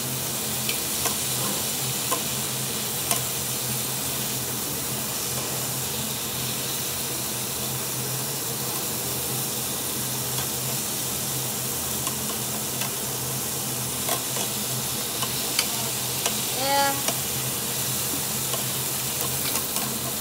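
Marinated duck meat sizzling on a tabletop Korean barbecue grill plate, a steady frying hiss, while metal tongs turn it with occasional sharp clicks against the grill. A low steady hum runs underneath, and one short pitched sound comes about three-quarters of the way through.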